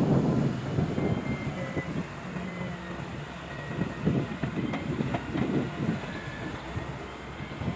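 Excavator working: an uneven diesel engine rumble that surges and eases, with faint high squeals and a few sharp metal clicks around the middle.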